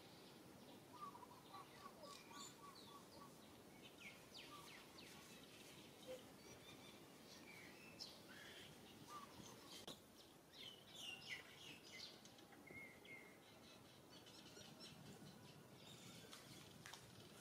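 Faint outdoor ambience with scattered bird chirps and calls, including a quick run of about eight short repeated notes about a second in.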